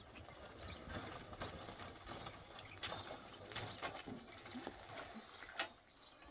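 Scattered clicks, knocks and crunches of a dirt motorcycle with its engine off, rolled and walked over stony ground.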